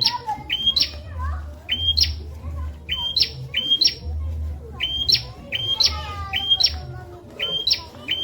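Prinia (prenjak) calling: short, sharp, high notes that step up in pitch, repeated over and over, often in quick pairs, about two or three a second, over a low rumble.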